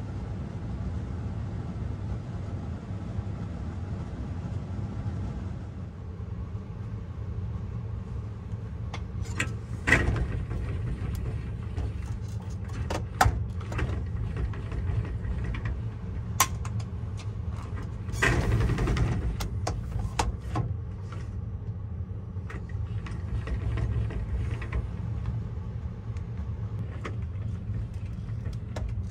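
Steady low hum with a few sharp clicks and knocks, and a brief rustle about eighteen seconds in.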